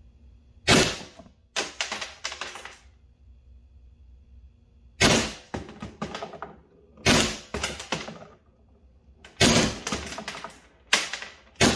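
Valken M17 magfed paintball marker firing on full auto in short bursts, each a sharp shot followed by several rapid ones, about six bursts a second or two apart, with the rounds smacking into a paper target on a barrel.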